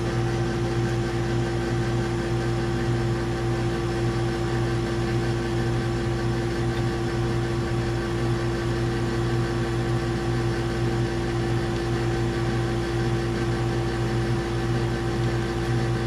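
Carrier heat pump outdoor unit running with a steady hum and a constant tone, not yet switching into defrost, a failure the technician puts down to a bad defrost board.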